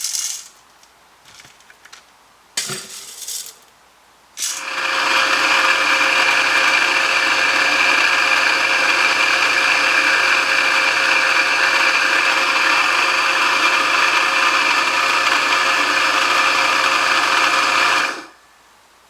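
Coffee beans rattling into the hopper in two short pours, then a Mazzer Mini burr grinder's motor starting and grinding espresso beans at a finer setting with a loud, steady whirring hum for about thirteen seconds before it is switched off near the end.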